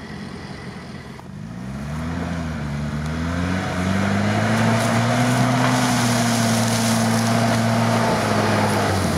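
UAZ-469 off-roader's engine revving up and then held at high revs while it pushes through snow and slush, growing louder as it approaches, and easing off near the end.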